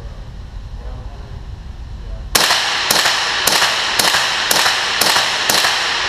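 Ruger 10/22 .22 LR semi-automatic rifle fired in steady rapid succession, about two shots a second, beginning about two and a half seconds in. The shots echo in an indoor range lane.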